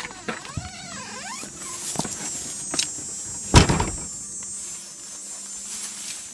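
Storm door squeaking on its hinges as it swings, with a few light clicks, then banging shut with one loud knock about three and a half seconds in.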